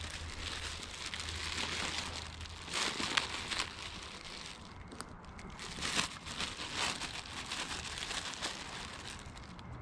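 Bread bag crinkling and rustling as bread is got out for bait, with a few sharper crackles about three seconds in and again around six seconds.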